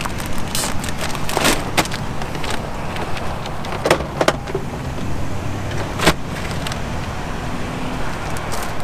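Shopping being loaded into an SUV's rear cargo area: several sharp knocks and rustles as packages and bags are set down and handled, over a steady low rumble.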